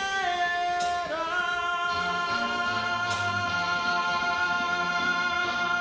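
A song with a singing voice holding one long note over band accompaniment; the note wavers briefly twice near the start and then holds steady, and bass notes come in about two seconds in.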